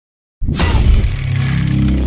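Intro logo sound effect: a sudden glassy, shattering crash starts about half a second in, with a glittering shimmer over deep bass notes.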